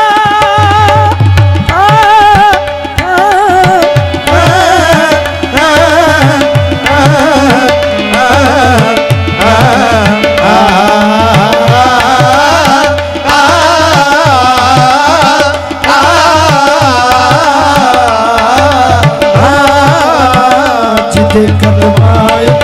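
Punjabi devotional song (manqabat) performed qawwali-style: a tabla beat and harmonium under a man's voice singing a wavering, ornamented melodic line.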